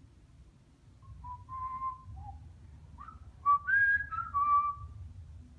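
African grey parrot whistling a short run of clear notes, starting about a second in and louder from about three and a half seconds in.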